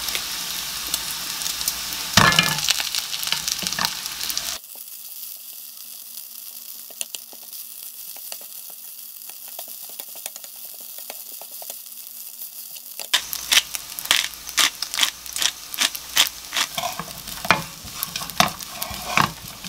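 Sliced garlic and bacon sizzling in a nonstick frying pan as a wooden spatula stirs them, then rice being stir-fried with them, the spatula giving many quick scrapes and taps against the pan. For several seconds in the middle the sizzle drops to a thin hiss.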